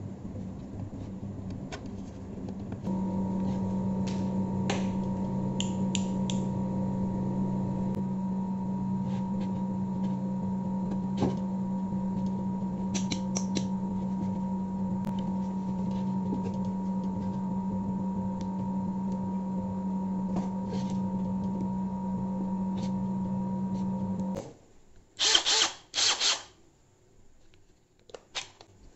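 A steady electrical or mechanical hum with a few fixed pitches, louder about three seconds in, that cuts off suddenly near the end. A few sharp clicks follow.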